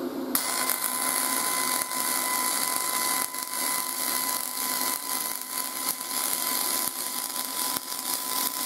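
MIG welding arc on aluminum in spray transfer mode from a YesWelder MIG250 Pro set at 22.8 volts with .045 wire: a steady high-pitched hiss carrying a whining tone, not the crackle of short-circuit MIG. The arc strikes a moment in and burns steadily.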